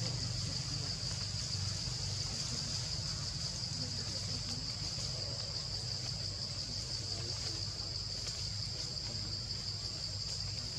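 Insects droning steadily in a high, unbroken pitch, with a low steady rumble underneath.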